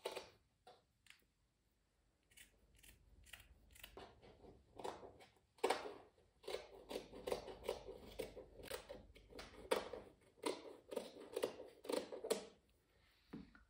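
Scissors cutting jute fabric: a long run of short, sharp snips that comes faster about halfway through.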